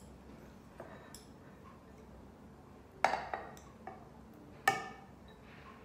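Tableware clinking: a few light taps, then two sharp clinks about three and four and a half seconds in, the second ringing briefly.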